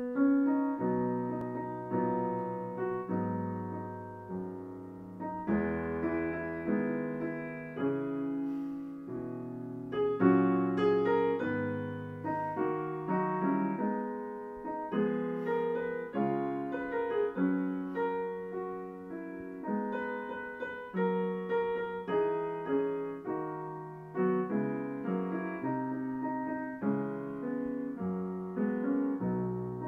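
Piano playing a hymn introduction in chords, each chord struck and fading, starting abruptly out of silence.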